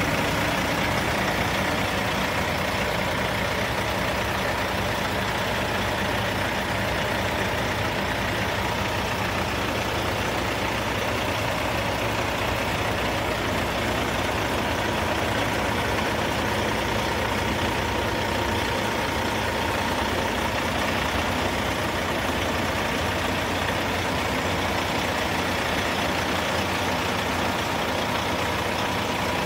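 Heavy tri-axle dump truck's diesel engine idling steadily.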